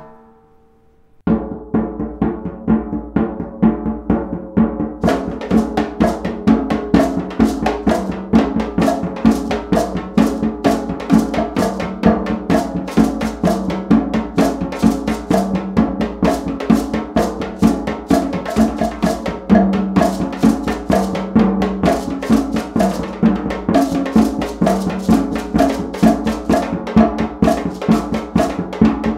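Layered percussion groove of Remo djembes, tuned rototoms, shekeres and cowbell. It starts after a short gap about a second in, and more layers of quick, high strokes join a few seconds later. From then on it runs as a steady, busy rhythm of pitched drum hits under shaker and bell strokes.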